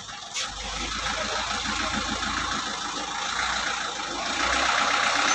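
Truck engine running slowly as the truck is maneuvered, a low rumble under a steady hiss of street noise.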